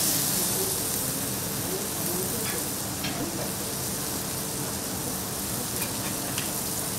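Chicken sizzling steadily on a teppanyaki iron griddle, with a few light taps of a metal knife and fork against the hot plate.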